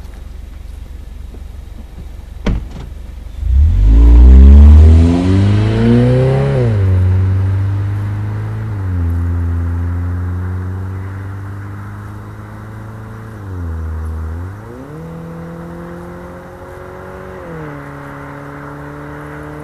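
Mazda CX-5's 2.0L four-cylinder engine with a Corksport aftermarket exhaust and short ram intake, accelerating hard past the camera about three and a half seconds in, its pitch climbing steeply and then dropping. The engine note then fades slowly, falling and rising in pitch a few times with gear changes and throttle. A sharp click comes shortly before the car arrives.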